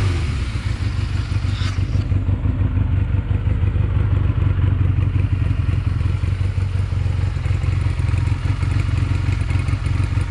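1985 Honda CM125's twin-cylinder engine idling steadily, freshly started, through its standard silencer with the baffles still in place.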